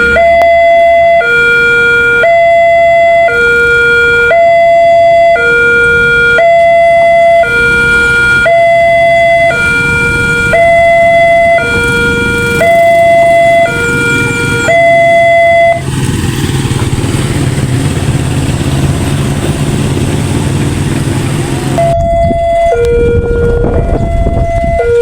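Railroad crossing warning siren sounding a two-tone hi-lo alarm, switching pitch about once a second. About sixteen seconds in it stops and a steady rumbling noise takes over for several seconds, then the two-tone alarm starts again near the end.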